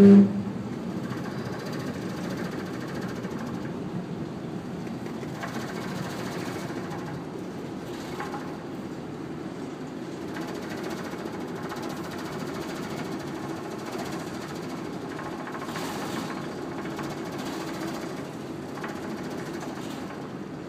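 A ferry's engines and machinery droning steadily as heard on the bridge while the ship manoeuvres into harbour. A very loud low tone lasts only a fraction of a second right at the start.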